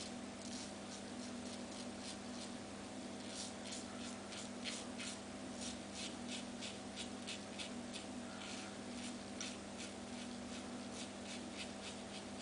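Slant safety razor with a Feather blade scraping through lathered stubble in runs of short, quick strokes, a few scratches a second. A steady low hum runs underneath.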